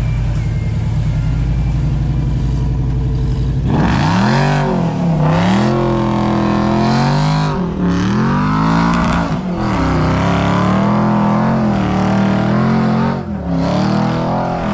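Vehicle engine running steadily, then from about four seconds in revving up and down again and again while working to pull through soft sand during a tow recovery.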